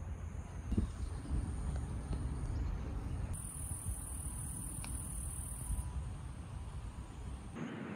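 Insects in the summer trees droning at a high, steady pitch, louder for a couple of seconds midway, over a continuous low rumble.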